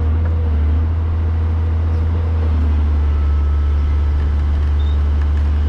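Kobelco SK250 LC excavator's diesel engine running steadily with a deep, even rumble.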